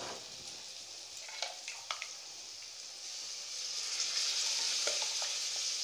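Masala tadka sizzling in a hot aluminium kadhai, with two light ladle clinks about one and a half and two seconds in. The sizzle grows louder three to four seconds in, as spoonfuls of dal and dough dumplings go into the hot masala.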